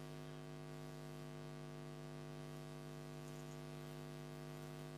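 Faint, steady electrical hum with light hiss, unchanging throughout: background noise from the recording chain.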